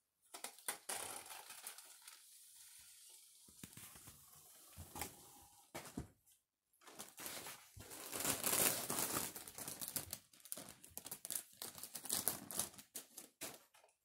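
Foil balloons being struck by spinning ceiling fan blades: the mylar crinkles and slaps in a rapid, uneven rattle of sharp ticks. It stops briefly about six seconds in and is loudest about eight to nine seconds in, when a balloon is caught against the blades.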